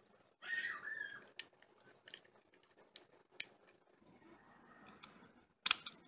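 Scattered light clicks and taps with a short scraping rub, from a laptop hard drive in its thin plastic cover and mounting screws being handled and fitted. A quick cluster of louder clicks comes near the end.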